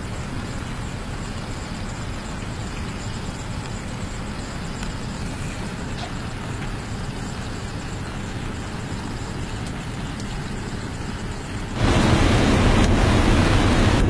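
Steady outdoor rushing noise with a heavy low rumble; about twelve seconds in, a louder steady roar takes over abruptly.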